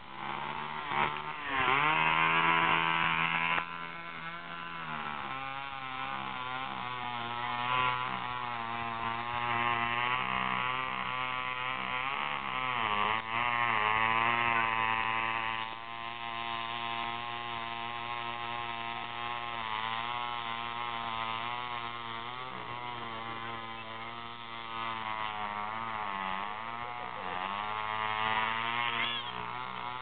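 Chainsaw engine running through a cut, its pitch repeatedly dipping under load and rising again, loudest about two seconds in and again around fourteen seconds.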